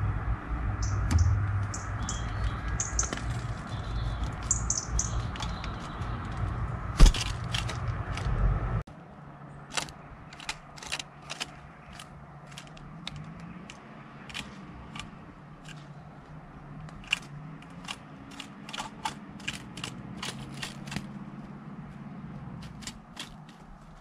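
A low rumble with short high bird chirps for about nine seconds, and one sharp crack about seven seconds in. Then the rumble stops abruptly, leaving a quieter stretch of scattered sharp taps and clicks at irregular intervals.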